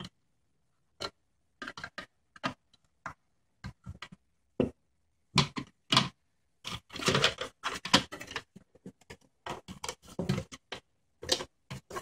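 Irregular clicks, taps and rattles of a CD-ROM drive's plastic and sheet-metal casing being handled and pried apart, busiest in a short run of rattling around the middle.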